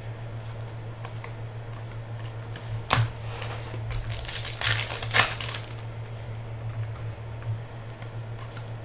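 2016 Panini Certified racing trading cards and their foil pack wrapper being handled, with crisp clicks and crinkles as the cards are slid and sorted, the sharpest about three seconds in and around five seconds in. A steady low hum runs underneath.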